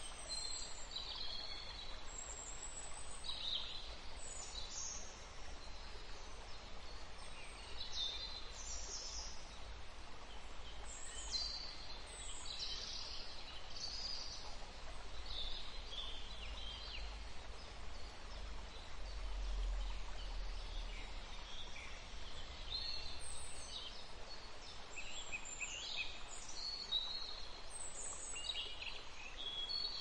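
Several small birds chirping and trilling in short high phrases, scattered throughout, over a steady hiss of distant flowing water.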